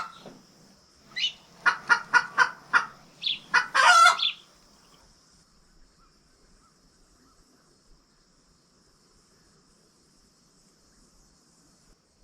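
Loud hen-like cackling close by: a quick run of short clucks ending in one longer drawn-out call. Then only faint, steady chirping of crickets.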